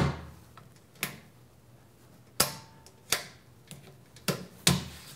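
Steel electrical enclosure door shutting with a sharp metal clack, followed by a handful of lighter clicks and knocks, the last two as the panel switch on the enclosure front is worked.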